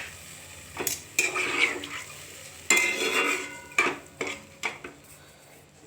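A metal spoon stirring in a cooking pot of rice and water, clinking against the pot about six times with short ringing tones.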